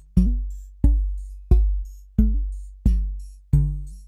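Drum-machine beat played through the Intellijel Cylonix Rainmaker's comb resonator, about one and a half hits a second. Each deep kick thump sets off a short, decaying resonant ring. The ring's pitch steps to a new note on each hit, so the comb feedback plays a melody driven through the module's 1 V/oct input.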